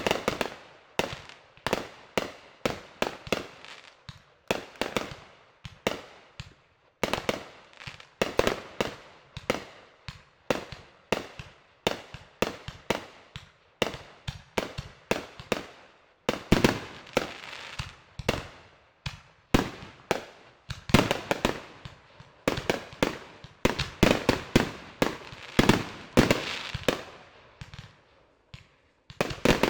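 Fireworks going off in a continuous barrage of sharp bangs and crackles, several a second, each with a short echoing tail. There are brief lulls about six seconds in, near the middle and near the end.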